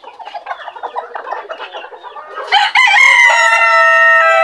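Bantam hens clucking, then about two and a half seconds in two bantam roosters crow together, long held crows overlapping one another.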